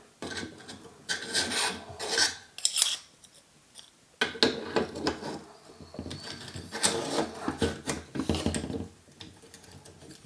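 AR-15 bolt carrier group and charging handle being pushed and worked into the upper receiver, metal scraping and rubbing on metal with sharp clicks, in several spells with a pause of about a second midway; the parts do not go in.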